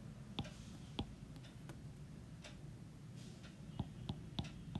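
Scattered faint ticks of a pen striking the writing surface during handwriting, coming quicker near the end, over a faint steady low hum.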